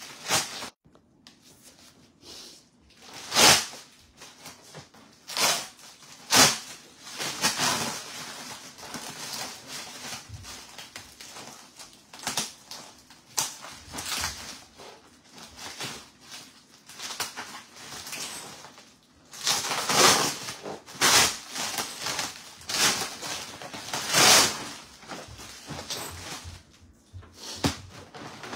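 Clear plastic stretch wrap crinkling and tearing as it is cut and pulled off a wrapped bag, in irregular rustles with several louder rips.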